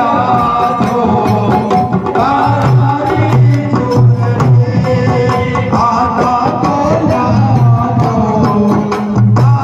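Rajasthani Holi dhamal folk singing (fag) with chang frame drums beaten in a steady, repeating rhythm.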